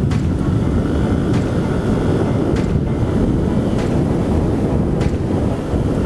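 Heavy wind rush on the microphone of a Yamaha NVX 155 scooter riding at speed, with its single-cylinder engine running steadily underneath and a few brief knocks.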